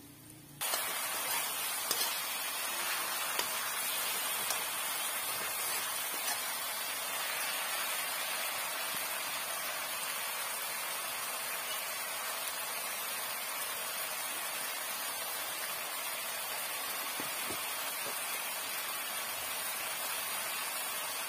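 Onion and tomato masala sizzling in hot oil in a steel kadhai: a steady hiss that starts abruptly just under a second in, with a few light clicks in the first few seconds.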